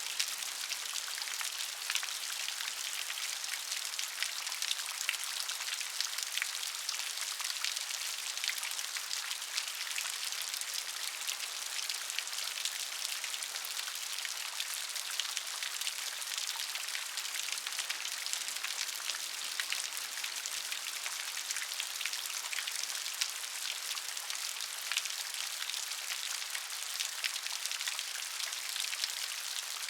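Steady rain falling, an even hiss of many drops with fine individual drop ticks throughout.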